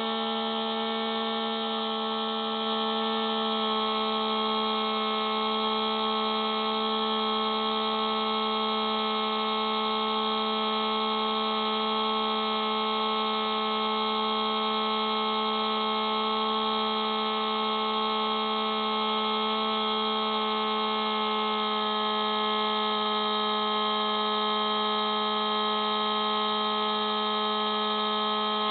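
Electric motor and propeller of an FPV model plane in flight at steady throttle: a constant hum with many overtones, a little louder after about two and a half seconds.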